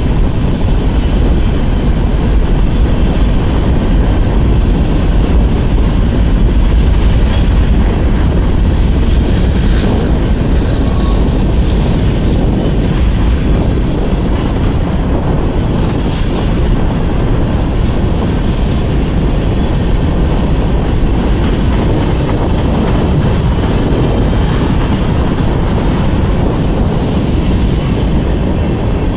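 Mixed freight train rolling past at close range: a steady, loud rumble of wheels on the rails.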